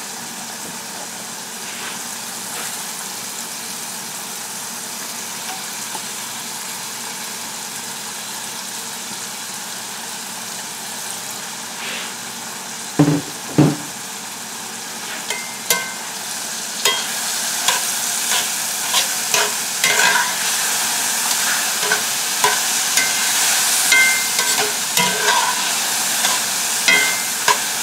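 Mushrooms and onions sizzling in a cast-iron skillet. About 13 seconds in come two dull knocks. From about 16 seconds a wooden spatula clicks and scrapes against the pan as the food is stirred, and the sizzle grows louder.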